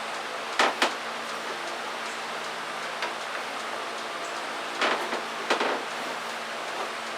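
A few short knocks over a steady hiss and low hum: two close together just over half a second in, and two more around five seconds in.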